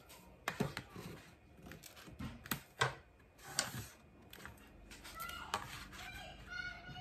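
A metal ruler and a marker handled on a sheet of cereal-box cardboard lying on a table: a string of light clacks and taps as the ruler is set down and shifted, and the marker drawn along its edge. Some faint squeaky tones come in near the end.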